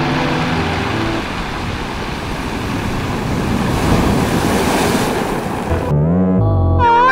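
A loud, steady rushing wash of noise, with held musical tones fading out in the first second. About six seconds in, the noise stops and gliding, warbling pitched tones come in.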